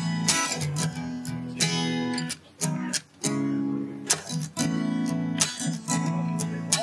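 Background music: acoustic guitar strumming chords, with a sharp stroke roughly every half second to a second.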